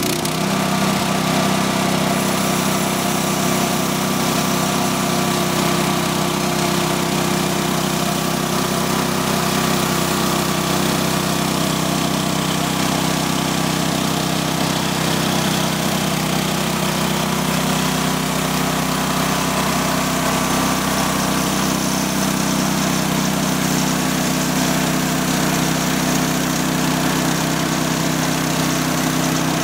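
Mobile band sawmill's 15 hp petrol engine running steadily under load while the band blade saws along a birch log.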